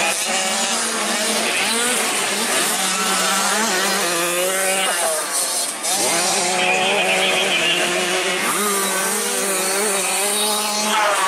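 Several 65cc two-stroke motocross bikes running around a dirt track, their engine notes rising and falling as the riders work the throttle, over a steady low drone.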